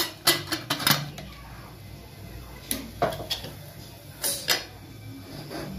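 Metal pressure cooker lid being fitted and its handle locked shut: a quick cluster of sharp clicks and clinks in the first second, then a few scattered metal knocks as the handle is lined up.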